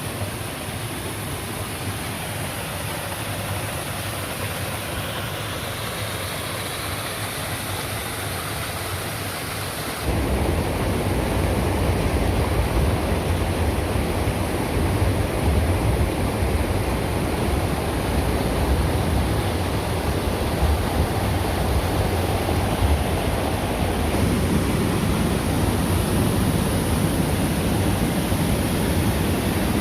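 Steady rushing water of a waterfall stream, a continuous roar of noise that jumps louder and deeper about ten seconds in.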